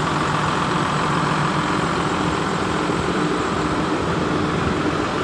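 New Holland TM140 tractor's six-cylinder diesel engine idling steadily.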